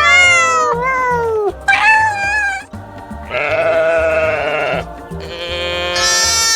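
Sheep bleating: three wavering bleats one after another, following a long falling call that ends about a second and a half in, over background music with a steady beat.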